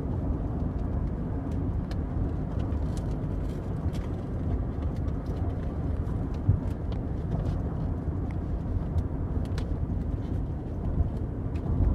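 Steady low rumble of road noise inside a moving car's cabin, with scattered small clicks and taps from handling a cardboard toy box.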